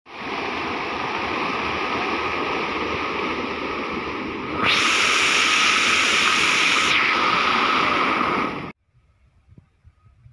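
Water jets of an illuminated decorative fountain splashing into its basin in a steady rush, louder for a couple of seconds about halfway through, then cutting off abruptly.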